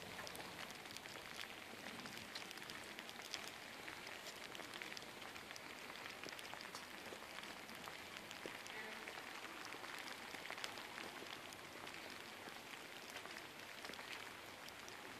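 Light rain falling steadily: a faint, even hiss dotted with many small drop ticks.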